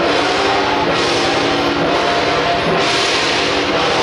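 Loud, continuous gong-and-drum music of a temple-procession troupe: dense drumming under repeated cymbal crashes, with ringing gong tones.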